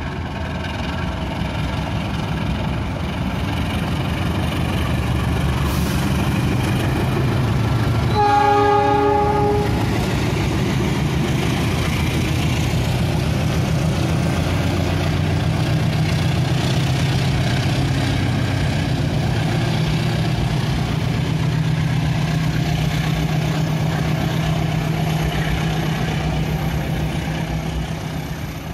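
CC 206 diesel-electric locomotive passing at speed with a container freight train: a steady diesel drone under the rolling noise of the wagons, fading near the end. One horn blast of about a second and a half comes about eight seconds in.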